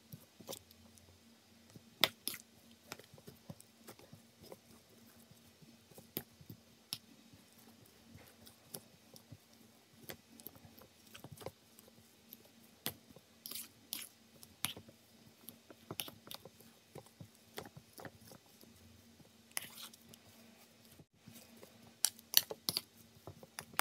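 Fork mashing boiled potatoes in a stainless steel bowl: irregular clinks and scrapes of the tines against the metal, with soft squashing of the potato. The sharpest clinks come about two seconds in and in a quick cluster near the end.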